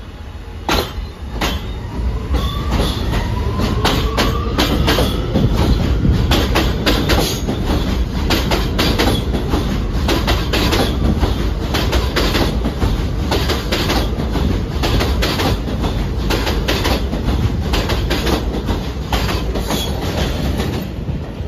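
R211 New York City subway train moving through an elevated station, a heavy rumble with a dense run of wheel clacks over rail joints. A rising whine comes through about two to four seconds in.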